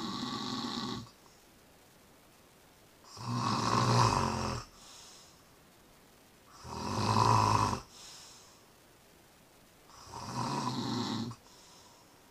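A person snoring with slow, regular breaths: the end of one snore at the start, then three loud snores about three and a half seconds apart, the first two each followed by a short, softer breath out.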